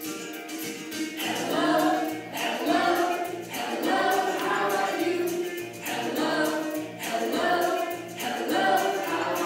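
Children's action song playing from the classroom's interactive whiteboard. Several voices sing together in short phrases over an instrumental backing with a steady bass line, and the singing comes in about a second in.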